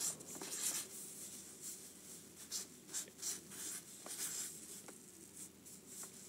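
Hand writing on paper, a run of irregular short scratchy strokes.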